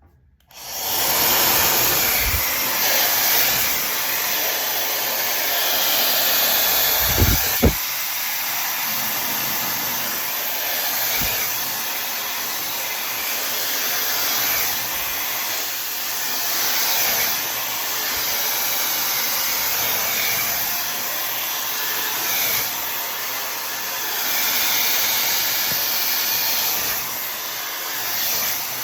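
Tymo Air Hype hair dryer switching on about half a second in and blowing steadily, its rush of air swelling and dipping a little as it is moved through the hair. A couple of brief low thumps come about seven seconds in.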